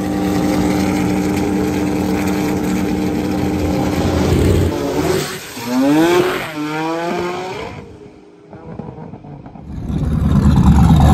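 Two drag cars, a V8-swapped Honda S2000 and a big-turbo Mazda RX-7, held at steady high revs, then accelerating hard down the strip: the engine pitch rises in repeated sweeps with each gear change and fades as they pull away. Near the end a loud low engine rumble comes in close by.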